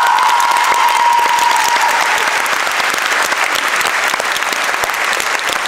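Concert hall audience applauding, a dense steady clapping that eases off slightly toward the end. A single drawn-out cheer rides over it for the first couple of seconds.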